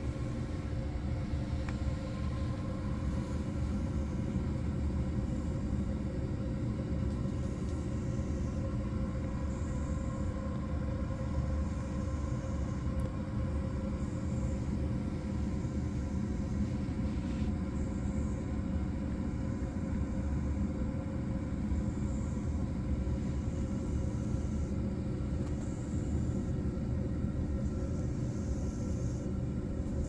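A steady low mechanical rumble with a constant hum.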